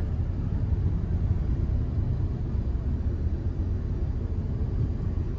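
Steady low rumble of a car heard from inside its cabin, engine and tyre noise as it moves slowly through traffic.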